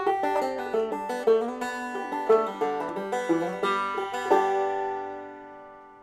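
Short music sting on a plucked string instrument: a quick run of picked notes that ends on a chord, which rings and fades away.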